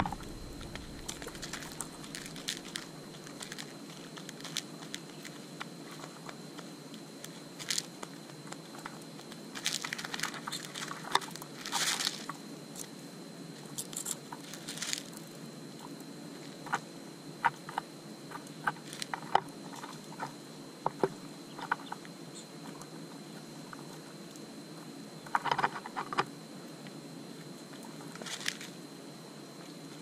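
Mourning doves pecking seed from a plastic dish close by: scattered sharp taps and crunches, some in quick clusters, over a steady low hum.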